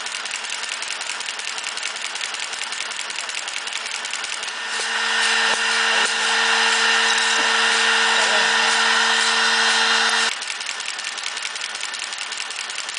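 A CNC hairbrush-making machine running with a fast, even mechanical clatter. About five seconds in, a louder steady motor whine comes in, holds for about five seconds, and cuts off suddenly.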